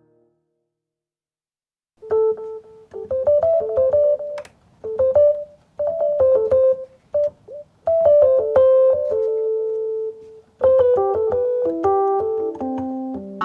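Yamaha Reface CP keyboard playing an electric-piano voice: short melodic phrases of single notes, separated by brief pauses, ending in a falling run. It starts about two seconds in, after silence.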